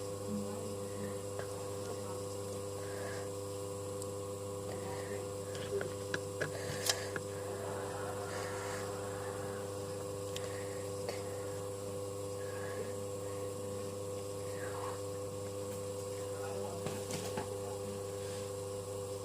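Steady electrical hum, with a few faint clicks and taps over it.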